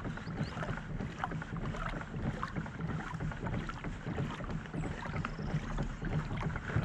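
Kayak moving through calm water: small splashes and trickling along the hull, with wind rumbling on the microphone.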